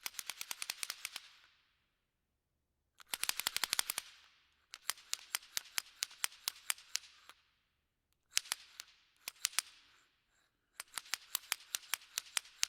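Five bursts of rapid, sharp clicks. Some bursts run at about ten clicks a second, and the middle ones are slower and sparser.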